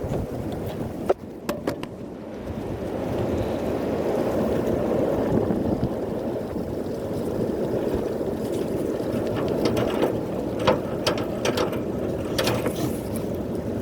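Strong wind buffeting the microphone, a steady low rumble, with scattered clicks and rattles, a few about a second in and more in the last few seconds.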